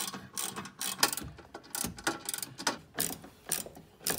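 Socket ratchet clicking in quick, uneven strokes while undoing the mounting bolts of an AIRMATIC air-suspension compressor.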